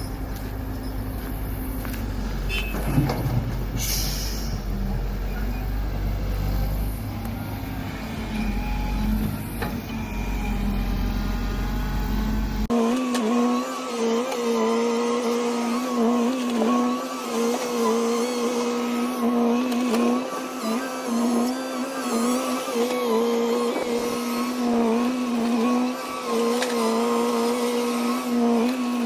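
Battery-powered toy excavator's small electric motor whirring. About halfway the sound changes abruptly from a low rumble to a steady, slightly wavering whine.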